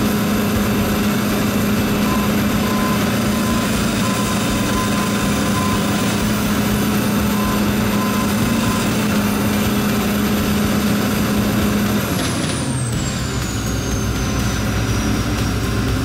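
John Deere 9770 STS combine's diesel engine running steadily at speed with a high whine over it. About three-quarters of the way through the engine note drops away as it throttles down, and the whine falls steadily in pitch.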